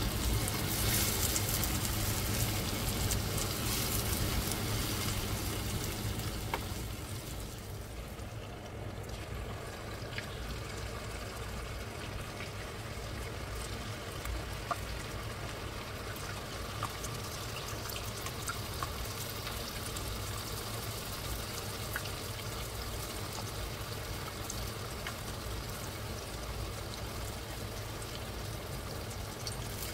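Pieces of smoked fish frying in sunflower oil in a pan: a steady sizzle, louder for the first several seconds and then settling, with a few small pops.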